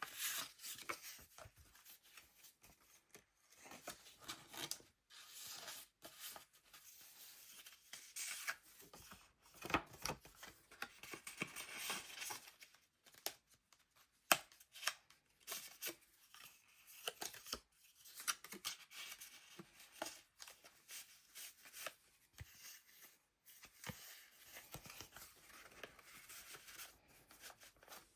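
Paper pages of a handmade junk journal being turned and handled: dry rustling and crinkling of layered papers, coming in short irregular rustles with light taps and clicks.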